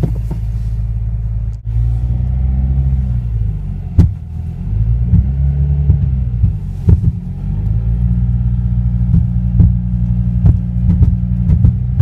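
2015 Subaru WRX creeping forward in first gear at full steering lock, its engine running low and steady while sharp pops sound from the car about ten times at uneven intervals. The owner takes the popping for a mechanical fault in the new car.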